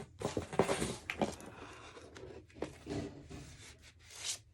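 Handling noise of a vinyl LP and its cardboard jacket as the record is slid out without an inner sleeve: rustling and scraping with a few light knocks, and a short swelling scrape that stops abruptly near the end.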